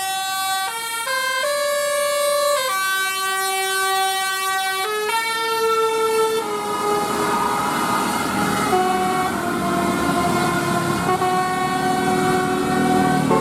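Multi-tone 'telolet' bus horn playing a tune: a string of held notes that step up and down in pitch. After about six seconds the notes go on less clearly over rising engine and road noise.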